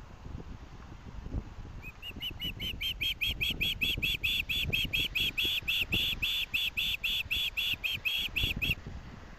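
Juvenile osprey on the nest giving food-begging calls: a fast run of high, clipped chirps, about four or five a second, starting about two seconds in and stopping shortly before the end. A low rumble runs underneath.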